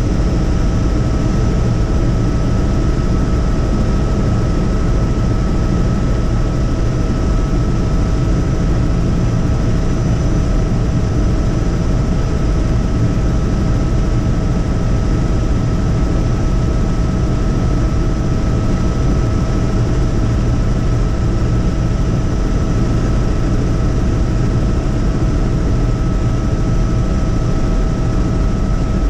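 Helicopter in flight, heard from on board: a loud, steady rotor and engine drone with a constant whine on top.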